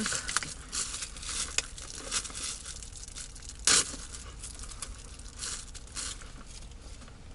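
Paper food wrapper crinkling and tearing in quick irregular crackles as a takeout burger is unwrapped by hand, with one louder crackle about three and a half seconds in.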